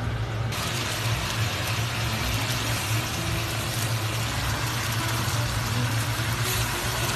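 Tomato sauce with a braised crucian carp sizzling and bubbling in an open wok as it is thickened, over a steady low hum. The sizzle starts about half a second in.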